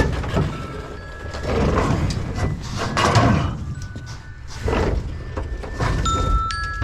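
Mobile phone ringtone playing, a melody of short electronic notes, over a steady low rumble.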